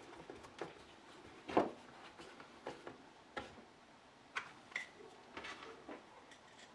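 Irregular light clicks and knocks of small parts and tools being handled during work on a concrete vibrator, with one louder knock about a second and a half in and a brief metallic ring a little later.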